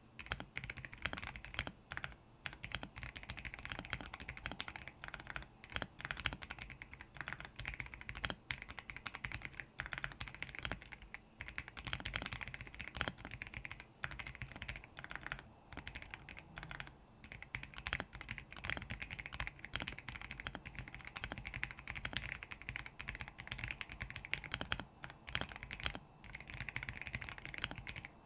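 Fast, continuous typing on a Royal Kludge R75 mechanical keyboard fitted with lubed RK Brown tactile switches: a dense, steady stream of key clacks.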